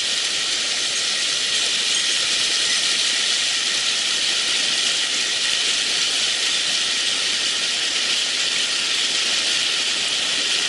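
Mountain stream water rushing over rocks: a steady, even hiss with no breaks.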